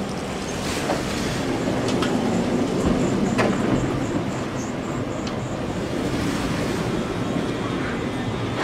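A Sapporo streetcar running on its rails, a steady rumble of wheels and motor with a few sharp clicks from the wheels and track.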